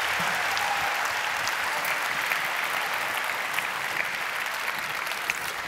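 A large audience applauding steadily, the clapping slowly dying down toward the end.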